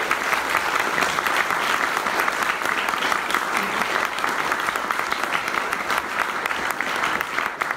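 An audience in a lecture hall applauding steadily.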